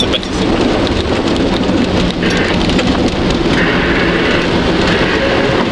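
Off-road 4x4 driving along a wet, muddy track, heard from inside the cab: a loud, dense, continuous rumble of engine and tyres with water and mud splashing against the body.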